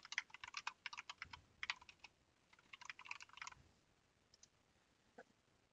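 Faint typing on a computer keyboard: two quick runs of keystrokes, then a few single clicks near the end.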